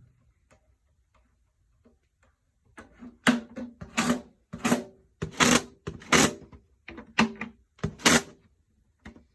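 A marching snare drum struck with a stick about a dozen times, roughly two strokes a second, with some softer taps between the louder hits, each ringing briefly: the head's tuning being tested.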